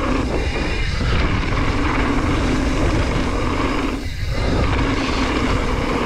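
Steady rushing wind noise on the camera microphone with trail rumble from a mountain bike riding downhill. It dips briefly about a second in and again about four seconds in.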